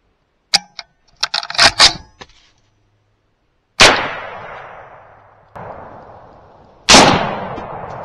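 Three rifle shots at a wild hog: two loud shots about three seconds apart with a quieter one between them, each trailing off in a long echo through the woods. Before the shots come a few sharp clicks and a quick cluster of ringing metallic clanks.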